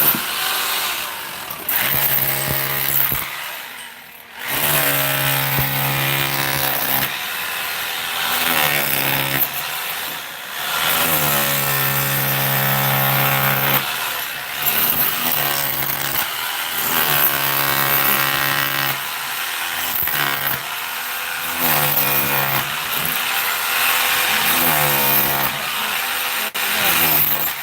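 A power tool running on and off in stretches of one to a few seconds, its pitch dipping and then steadying each time it starts.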